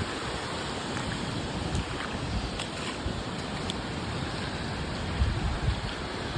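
Hurricane wind blowing hard in steady gusts, buffeting the microphone, with a stronger gust about five seconds in.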